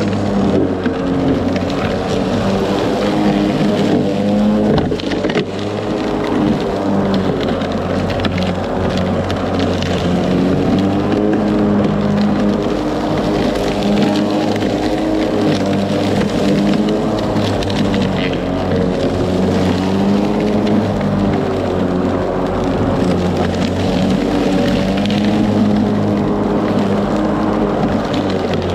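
Ryobi 40V brushless electric lawn mower running while mowing, its motor and blade giving a steady hum that wavers slightly in pitch, with frequent ticks and crackles of cut material striking the deck.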